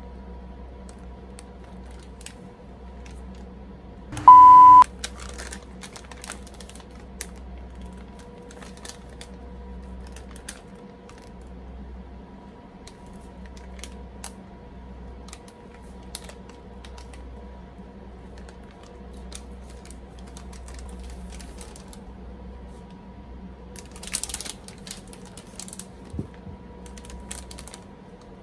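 Light, scattered clicks and crackles of a thin, crisp dried eel snack sheet being handled, over a faint steady hum. About four seconds in, a loud beep lasts about half a second, and near the end there is a brief burst of crinkling.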